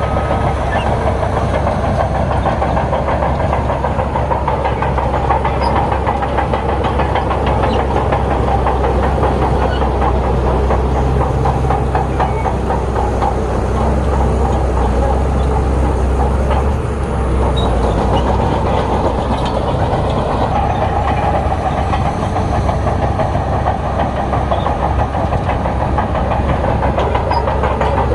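Crawler bulldozer's diesel engine running steadily under load, with its steel tracks clattering and clanking continuously. The engine note drops briefly about two-thirds of the way through.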